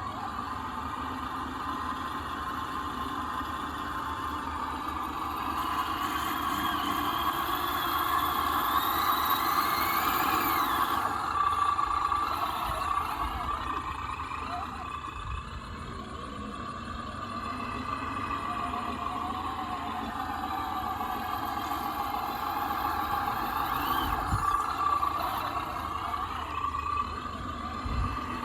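Axial SCX10 RC crawler's electric motor and drivetrain gears whining steadily, the whine climbing and dropping in pitch as the throttle changes between about six and eleven seconds in.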